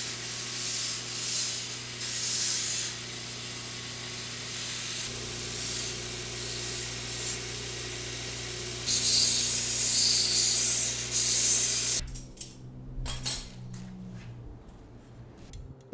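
Belt grinder running with a steady hum while metal is pressed against the abrasive belt, giving a grinding hiss in spells that is strongest at the start and again from about nine seconds in. About twelve seconds in the grinding stops, and a few faint metal clinks follow.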